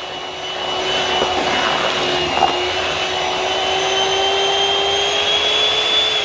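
Electric hand mixer running with its beaters down in a pot of mashed potatoes, whipping them: a steady motor whine that creeps slightly higher in pitch, then starts to wind down at the very end as it is switched off.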